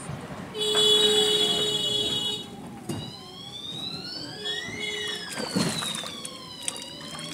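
A siren: a steady tone for about two seconds, then a slow wail that rises in pitch and falls again over about four seconds. A short knock sounds about five and a half seconds in.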